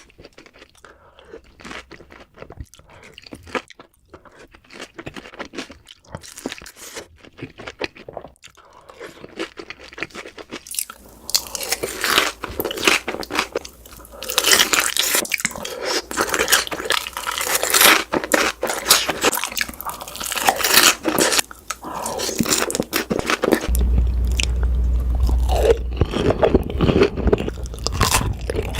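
Close-miked eating: people biting and chewing crunchy food, with dense crackling crunches. The crunching is quiet at first and gets much louder about eleven seconds in. A low hum joins near the end.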